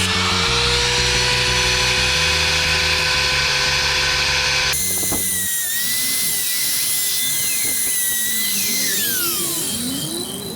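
Small electric power tool, drill-like, whining at speed with its pitch shifting slightly, over background music. About halfway the whine jumps abruptly higher and glides up and down as the tool works.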